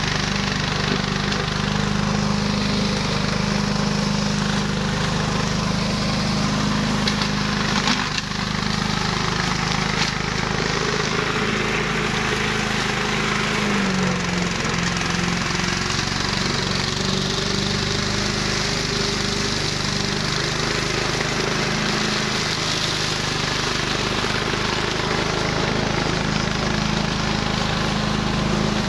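A 1-metre flail mower driven by a 14 hp Subaru petrol engine, running steadily as it cuts. The engine pitch sags briefly about halfway through, and there are a couple of short sharp knocks.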